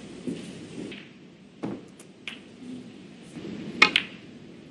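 Snooker cue and balls clicking: several sharp, isolated clicks of cue tip on cue ball and ball on ball, the loudest a pair of clicks close together near the end.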